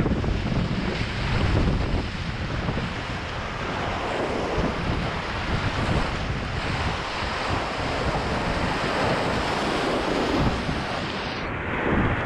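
Whitewater river in high water rushing through rapids, heard up close from a kayak running them, with wind buffeting the microphone.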